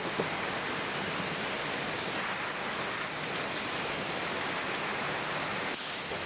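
Steady, even machinery noise of a bottle depalletizer and conveyors running in a bottling hall, with no separate clinks of glass standing out.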